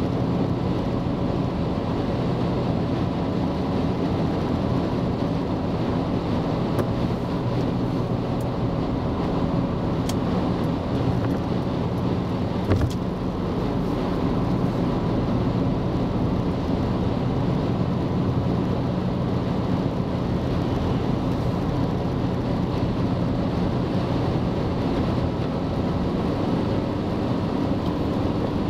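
Steady road noise of a car driving at highway speed, heard from inside: tyre rumble and engine drone, with one brief knock about two-thirds of the way through.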